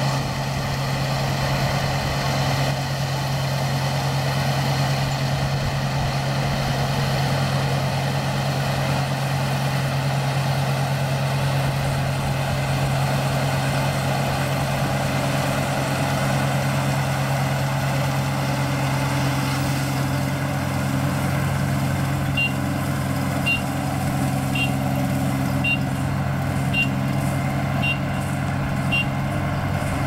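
ISEKI rice combine harvester running steadily as it harvests. In the last third, its warning beeper sounds seven short high beeps about one a second, the reverse alarm as the machine backs to turn at the corner of the field.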